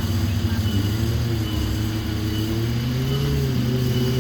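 Off-road 4x4 engine running under load, its pitch rising about a second in and then holding higher as it revs up.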